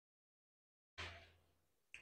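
Near silence: dead silence for about a second, then faint room tone with a low hum.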